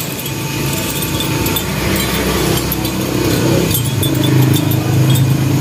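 Steel chain links clinking and jingling as they are handled and hung on hooks. An engine runs steadily underneath.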